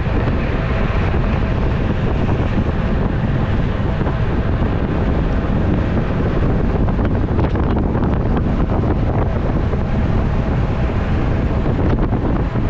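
Steady wind noise buffeting the microphone of an onboard camera on a road bike riding at speed.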